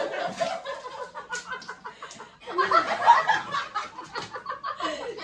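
Three women laughing hard: breathless, cackling laughter in quick short gasps, loudest about halfway through.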